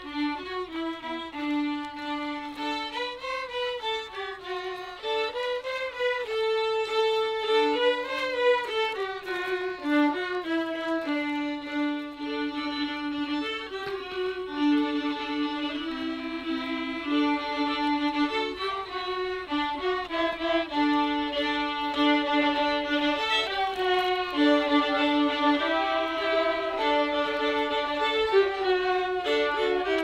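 A group of violins playing a tune together, the melody moving between held notes, with a second part in harmony at times.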